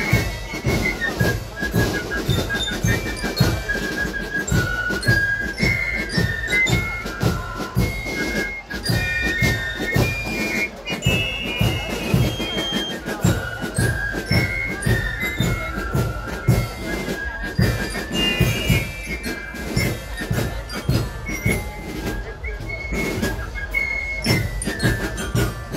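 German Spielmannszug fife-and-drum corps playing a march: transverse fifes carry the melody over a steady beat of marching snare and bass drums, with bell lyres.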